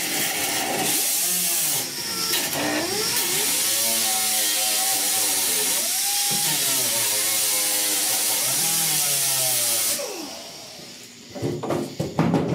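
Angle grinder grinding down the edge of a sheet-steel patch panel, its motor pitch sagging and recovering as it is pressed into the metal. It stops about ten seconds in and runs down, followed by a few knocks near the end.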